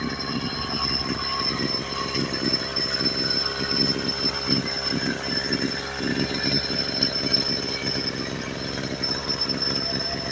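Maruyama MBS261E brush cutter's small two-stroke engine running steadily, with a rapid pulsing exhaust note and a steady high whine over it. The engine has an abnormal noise that the seller notes.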